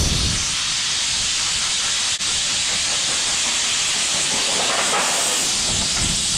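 Compressed-air blow gun hissing steadily as it blows water off freshly painted sheet metal, with a momentary dip about two seconds in.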